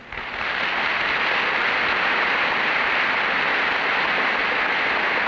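Audience applauding, the clapping swelling in over the first half second and then holding steady.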